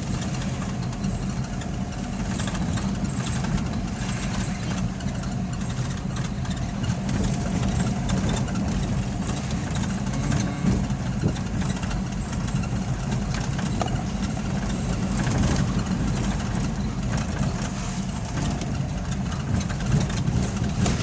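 Mahindra Bolero Pickup's engine running on the move, with road noise, heard from inside the cab as a steady low drone.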